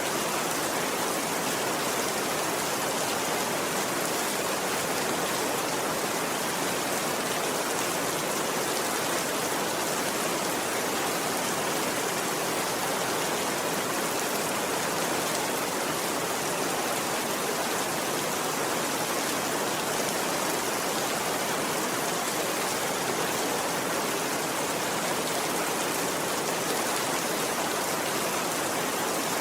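Steady rain falling, an even, unbroken hiss with no change in level.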